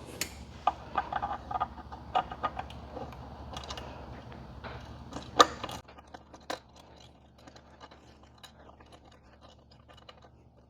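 Small metal clicks and clinks of bolts, washers and a steel rack leg being handled while an M10 bolt is pushed through and threaded in by hand. There is a sharper knock about five seconds in, and after that only faint, scattered ticks.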